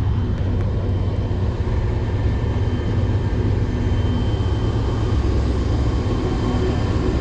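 Diesel locomotive hauling a freight train across a steel railroad bridge: a loud, steady low engine rumble.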